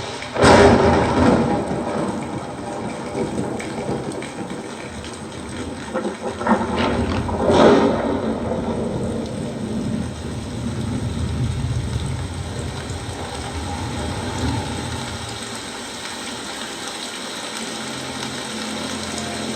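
Thunder-and-rain effects from a Dolby Atmos demo trailer, played back through a homemade 2.1 class D amplifier and its speakers with subwoofer. A loud crash comes about half a second in and another surge of crashing comes around seven seconds, over a steady heavy rushing with deep bass.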